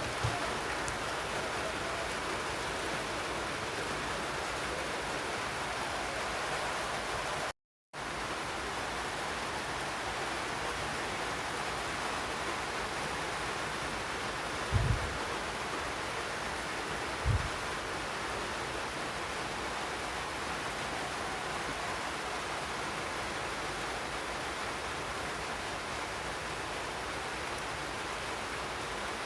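Steady, even hiss of background noise, broken by a moment of complete silence about seven and a half seconds in, with two short low thumps near the middle.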